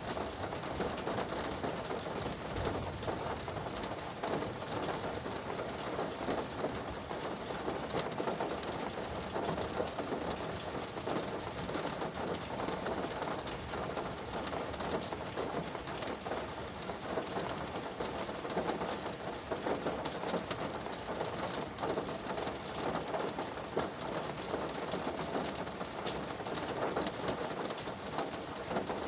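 Rain falling on a car's roof and windows, heard from inside the cabin: a steady, dense patter of many small drop impacts.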